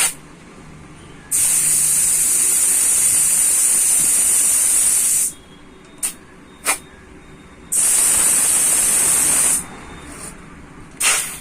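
Compressed air hissing into an auto-rickshaw tyre's new inner tube through an air chuck. There are two long bursts, about four seconds and then about two seconds, with short sharp puffs of air between them and near the end.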